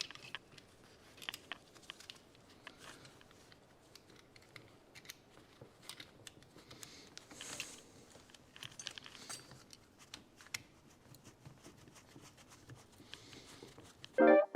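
Faint, scattered clicks, taps and rustles of hands handling the new Bosch fuel pressure regulator and its fittings during the swap.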